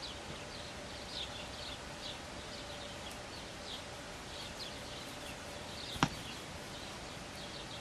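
Outdoor ambience with a small bird chirping repeatedly in the background, short high calls about twice a second. A single sharp click about six seconds in is the loudest sound.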